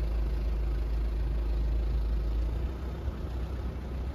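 Low, steady rumble of a car driving, heard from inside the cabin, easing off slightly near the end.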